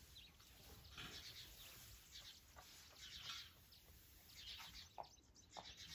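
Faint bird calls: short chirps and quick falling notes, scattered and irregular, over a low hush.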